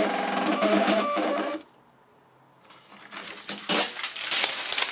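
Sharp XE-A137 cash register's thermal printer running out the electronic journal report, its motor stopping abruptly about a second and a half in. After a short quiet, the long printed paper strip is torn off and handled with irregular crackling rustles.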